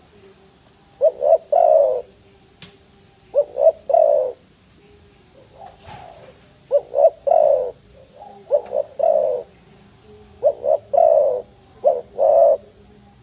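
Spotted dove cooing: a repeated three-note phrase, two short coos then a longer one, about six times with short pauses between.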